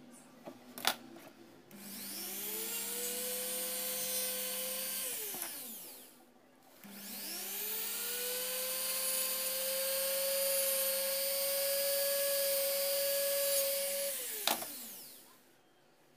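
Handheld rotary tool spinning a small disc on its shaft while a blade is held against it to turn it round, lathe-style. The motor runs twice, a short run and then a longer one, its whine rising as it spins up and falling away as it stops. A sharp click comes about a second in.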